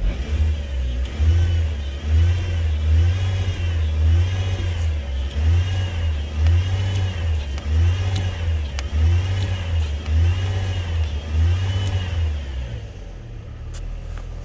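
Chevrolet Trailblazer engine revved in quick repeated blips, about one a second, each climbing and falling back, then settling to idle near the end. It is being revved to heat the exhaust and loosen seized catalytic converter bolts.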